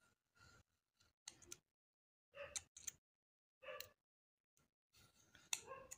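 Faint, brief scrapes and clicks from handling the opened phone and a plastic syringe as it dispenses isopropyl alcohol along the battery edges. There are about six short sounds with gaps between them, the loudest cluster near the end.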